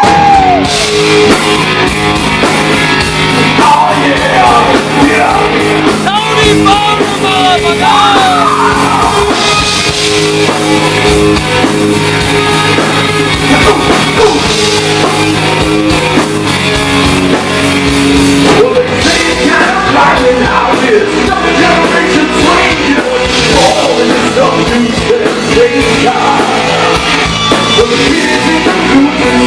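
Rock band playing live and loud, with a singer over the band; the music shifts to a new section about two-thirds of the way through.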